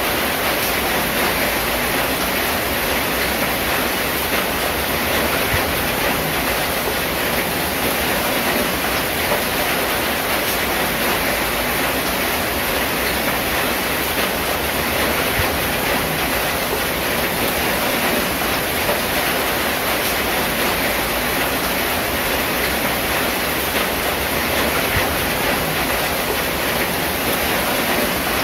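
Steady rain falling on a corrugated zinc roof: an even, unbroken hiss made of countless small drop impacts on the metal sheets.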